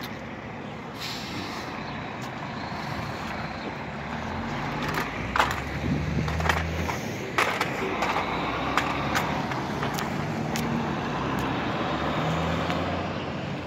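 Heavy diesel dump truck towing a flatbed trailer loaded with a backhoe, its engine running as it pulls away. The engine noise builds about four seconds in, swells again near the end, and a few sharp knocks come through in the middle, with a car passing close by.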